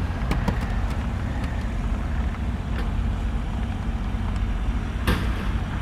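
Motor vehicle engine idling steadily, a low even hum. There are a few faint clicks, and a short noise that spans many pitches comes about five seconds in.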